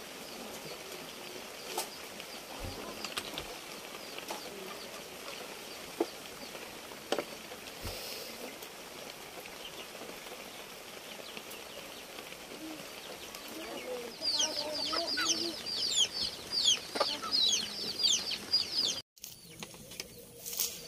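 Chickens clucking and chirping in a quick, busy run of high calls for several seconds, starting about two-thirds of the way in and cutting off abruptly. Before that there are only a few faint clicks over a low background.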